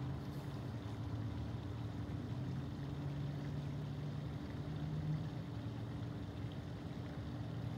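A motor or engine running steadily at a low, even hum, its pitch shifting slightly about four to five seconds in.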